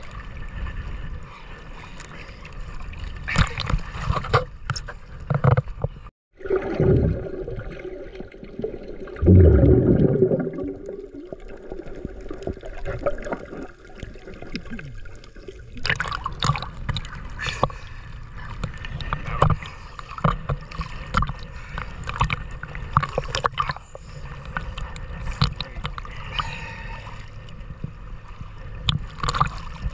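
Water sloshing and gurgling with irregular splashes and knocks. The sound cuts off briefly about six seconds in and is muffled for about ten seconds, then the brighter splashing returns.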